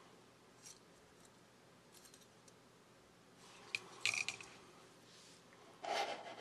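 Faint small clicks and light scrapes of metal tweezers and phone circuit boards against a plastic midframe as the motherboard is lifted out. A louder cluster of clicks comes about two-thirds of the way through, and a short rush of noise comes near the end.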